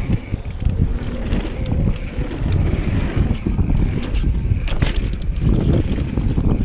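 Mountain bike being ridden downhill, its tyres rumbling over wooden boardwalk planks and then dirt, with wind buffeting the microphone. Sharp clatters from the bike come through about five seconds in.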